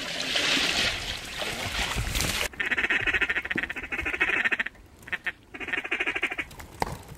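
Water sloshing for about two and a half seconds, then a sudden change to rapid duck quacking in several bursts, each up to about two seconds long, with short gaps between them.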